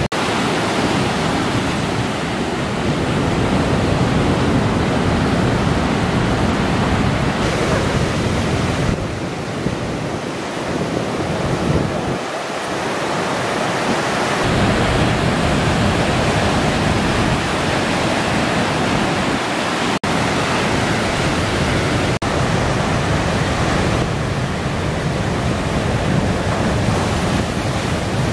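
Big ocean surf breaking and washing in, a steady rushing noise with wind buffeting the microphone. The tone of the noise shifts several times, and it drops out for an instant twice, about two seconds apart, in the second half.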